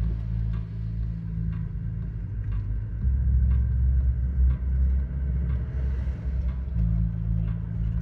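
A car's engine and road noise while driving: a steady low rumble that gets louder about three seconds in, with faint regular ticks about twice a second.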